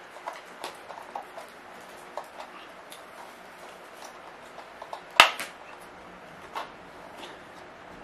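Small plastic clicks and taps of a ring light's mounting bracket being fitted and tightened onto its tripod stand by hand, with one sharp, much louder click a little over five seconds in.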